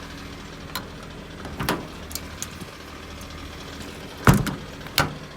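Ford 6.7 L Power Stroke V8 diesel idling steadily, with several sharp clicks and knocks over it. The loudest knock comes about four seconds in and another follows about a second later.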